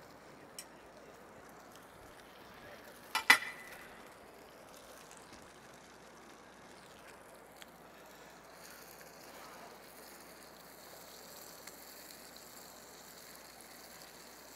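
Breadcrumb-coated patties frying in a skillet, a faint steady sizzle, broken about three seconds in by two sharp clacks close together, with a few light clicks later.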